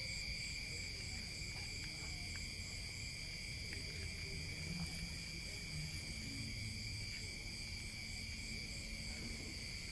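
Night insects such as crickets trilling steadily, making several continuous high tones, one of them pulsing evenly, over a low background rumble.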